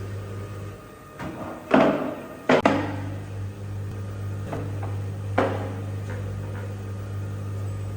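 Washing machine running with a steady low hum that drops out for a second or two near the start, with a few sharp knocks and thuds, the loudest about two and two and a half seconds in.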